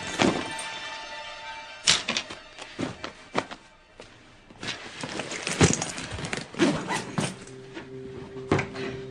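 Film soundtrack: music under a run of sharp thuds and knocks, about eight, irregularly spaced. A steady held note comes in near the end.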